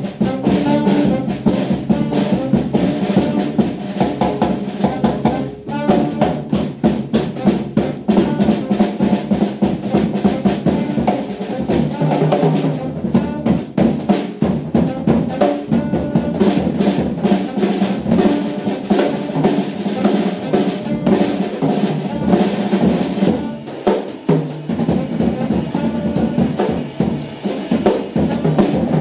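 Live jazz saxophone trio playing, with a busy drum kit prominent: rapid snare and cymbal strokes and bass drum over sustained pitched lines.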